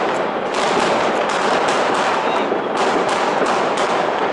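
New Year's Eve fireworks: a dense, unbroken barrage of bangs and crackles from many rockets and firecrackers going off at once. The reports overlap so closely that they merge into a steady din.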